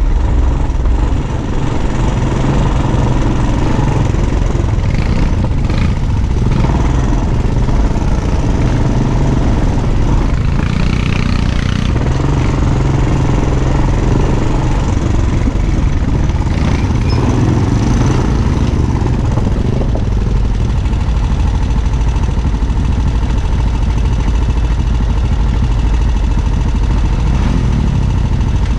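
ATV engine running, its pitch rising and falling a few times as the throttle changes.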